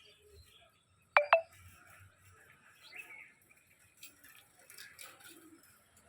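A bird calling: a loud, sharp two-note call about a second in, followed by faint scattered chirps.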